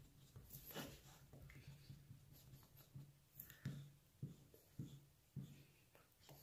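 Faint scraping of a wooden stir stick against the inside of a paper cup while mixing two-part epoxy resin, with several soft strokes about half a second apart in the second half.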